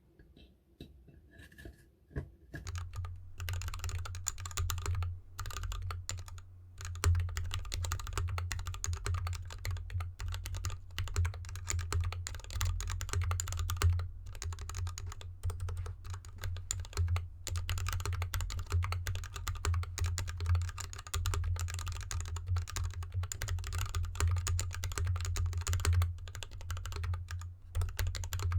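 Continuous fast typing on a GK64X mechanical keyboard with an anodized aluminium case, foam dampening and lubed Gateron linear switches under DSA keycaps, the keyboard resting on felt fabric. A few faint taps come first, then steady typing sets in about two and a half seconds in.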